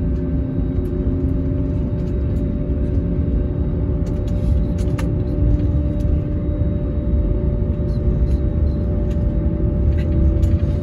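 Cabin noise of a jet airliner taxiing, heard beside the wing: a steady low rumble from its turbofan engines at taxi power, with a constant hum over it.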